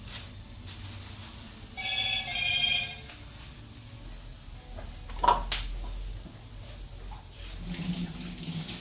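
An electronic tone, two held notes lasting about a second, sounds about two seconds in, of the kind a phone alert makes. A sharp clack a little past five seconds is the loudest sound.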